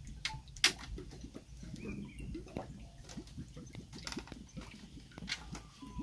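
Bamboo poles creaking and knocking as they are handled and tied, with scattered light clicks and a sharp knock about half a second in.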